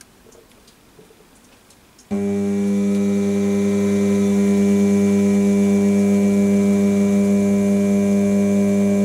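A 200 W DC treadmill motor on a DLM speed controller starts up suddenly about two seconds in and runs slowly with a loud, steady hum. Its speed is being turned down towards its slowest usable speed of about 310 RPM.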